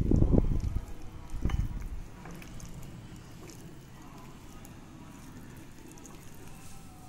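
Hands mixing paneer, onion and capsicum pieces through thick yogurt marinade in a bowl: wet squelching, louder in the first two seconds, then faint.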